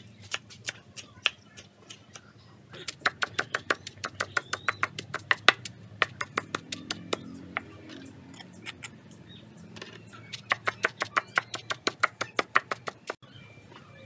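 Cleaver chopping fresh green herbs on a thick round wooden chopping block: quick knocks, about five a second, in two runs of a few seconds each, with scattered single strokes between.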